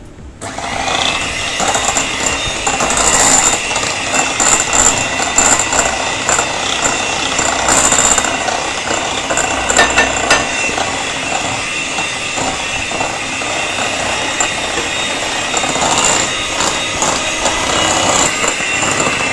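Electric hand mixer switched on about half a second in and running steadily, its twin beaters creaming butter and sugar in a glass bowl, with scattered clicks.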